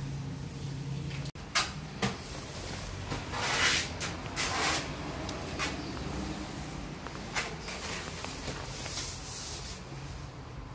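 Sharp knocks and short bursts of scraping as a thin white board is handled and slid into place on the bottom of a kitchen base cabinet. A low steady hum cuts off about a second in.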